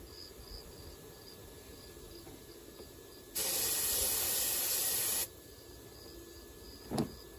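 Aerosol can of starting fluid sprayed in one steady hiss of about two seconds, a dose to get a long-idle Briggs & Stratton V-twin engine to fire, then a short second burst near the end.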